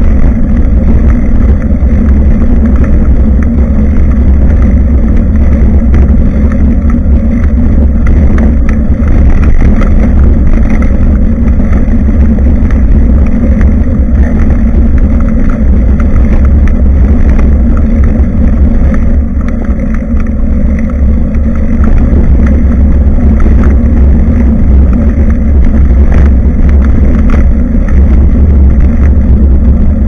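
Wind rumbling on a bicycle-mounted action camera's microphone while riding: a steady, loud, deep buffeting with no letup.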